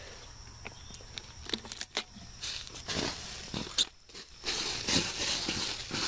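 Footsteps and rustling through leafy undergrowth, with scattered short knocks. From about four and a half seconds in, a steadier hiss joins: compressed air-duster gas escaping from the can that has been shot through.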